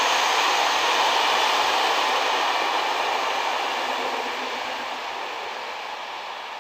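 A passing train's running noise, a steady rushing sound that fades away from about halfway through as the train moves off.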